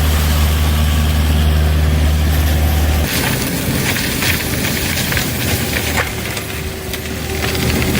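Kubota KX057 mini excavator running a mower attachment, its engine giving a steady low hum. About three seconds in the hum stops suddenly and a rougher, noisier sound follows, with scattered knocks and crackles.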